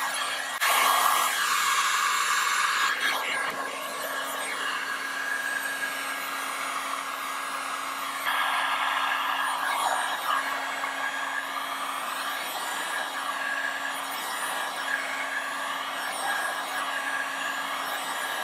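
Handheld electric heat gun running steadily, its fan blowing hot air with a low hum under the rush, as it heats window tint film to shrink it onto a curved rear window. The rush shifts abruptly a few times.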